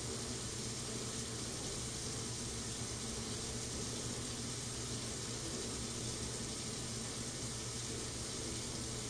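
Water pouring steadily into a home-welded steel fuel tank as it is filled to measure its capacity, an even hiss with a low steady hum beneath.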